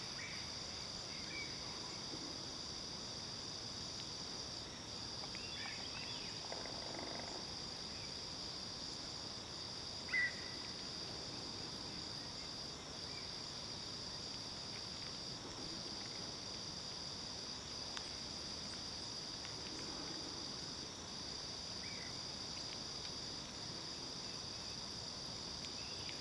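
Insects calling in a steady, unbroken high-pitched drone, with a few faint short chirps and one brief louder chirp about ten seconds in.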